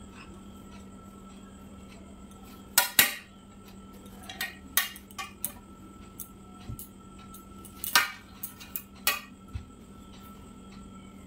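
Wire clothes hangers clicking and clinking as saris are hung on them: a few sharp knocks, two close together about three seconds in, another loud one about eight seconds in, and softer clicks between.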